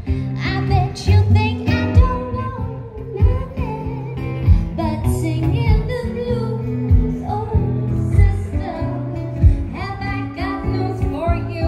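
Live acoustic music: two acoustic guitars strummed in a steady rhythm while a woman sings.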